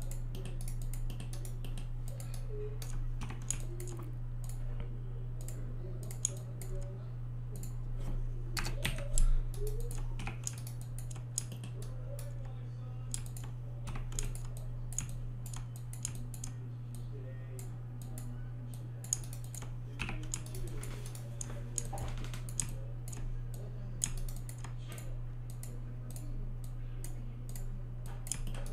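Computer keyboard and mouse clicking in irregular, scattered taps, with a cluster of louder taps about nine seconds in. A steady low electrical hum runs underneath.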